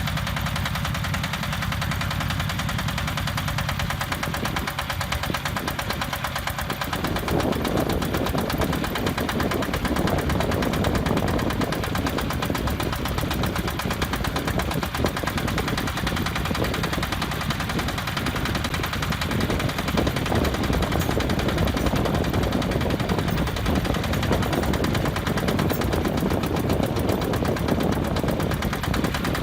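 Engine of a self-loading concrete mixer running under work with a rapid, even clatter, getting louder and fuller about seven seconds in.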